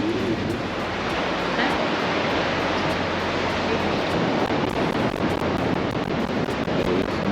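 Steady wash of ocean surf, waves breaking at the shore.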